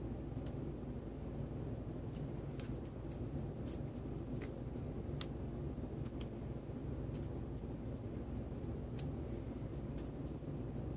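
Faint, irregular small clicks and taps of steel tweezers on a brass verge fusee watch movement, pressing the escape wheel's bearing pieces together to take up its end play, with one sharper click about five seconds in. A steady low hum lies underneath.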